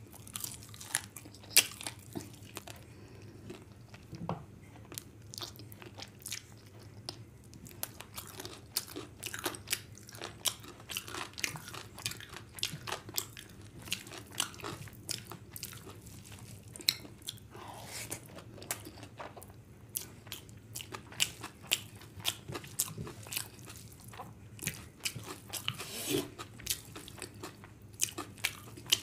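Close-miked chewing and wet mouth sounds of someone eating chicken and fried rice by hand, with many irregular clicks and smacks throughout.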